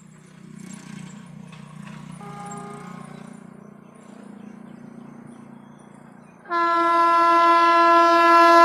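Electric locomotive approaching with a low steady rumble and a faint brief tone about two seconds in. About two seconds before the end its horn sounds: one loud, steady blast that holds.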